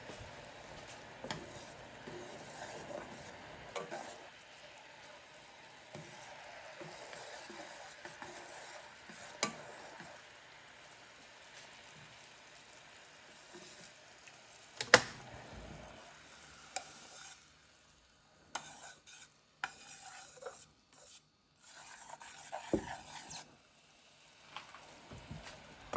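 Fish sauce and sugar sauce bubbling in a small saucepan while it is stirred with chopsticks, reducing to thicken. The chopsticks click against the pan now and then, loudest about fifteen seconds in. The bubbling hiss drops away in the second half, where it is broken by more clicks.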